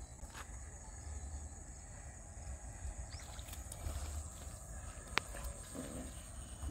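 Wind rumbling on the microphone, with a few sharp taps as a hooked catfish is dragged and flops on dry dirt; the loudest tap comes about five seconds in.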